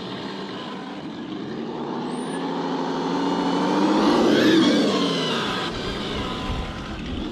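Radio-controlled muscle car with an added engine-sound system, giving a growl. It rises in pitch and loudness as the car drives up and passes, peaking about four and a half seconds in, then drops away.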